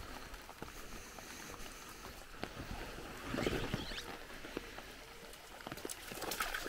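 Creek water overflowing in a faint steady rush across a plastic-sheet spillway, with scattered soft ticks and a louder, splashier patch about three seconds in.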